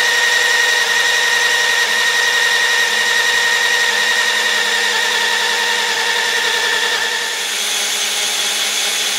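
Cordless drill running steadily under load, spinning an old gearless distributor to drive the engine's oil pump and prime the oil system before first start, as oil pressure builds. Its whine shifts in tone with a brief dip about seven seconds in.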